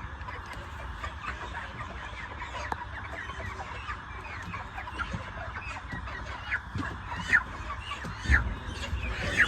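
A large flock of chickens making a steady chorus of clucks and short calls, with a couple of louder, sharp squawks near the end.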